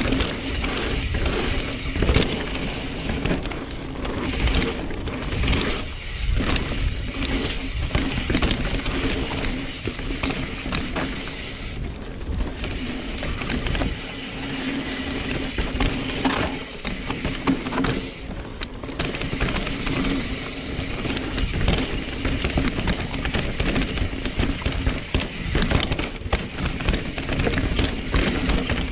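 Full-suspension mountain bike riding a dirt trail: tyres rolling over rough ground with a constant clatter of small knocks and rattles from the bike.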